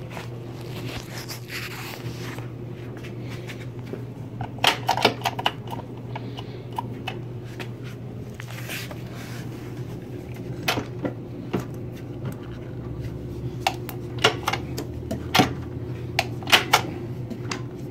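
Scattered light clicks and knocks over a steady low hum: a short cluster about four to five seconds in, and more spread through the last third.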